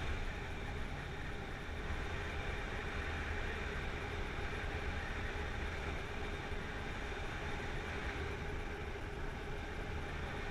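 Steady wind rush and low rumble on the camera microphone from airflow during paraglider flight.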